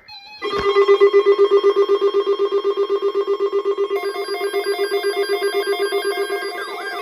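Electric bell ringing rapidly and steadily. About four seconds in, a second, slower beeping tone joins it, and near the end wailing siren tones begin to rise and fall.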